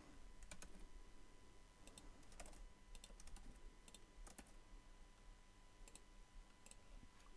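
Faint, scattered computer keyboard keystrokes and clicks, a few taps at a time with pauses between.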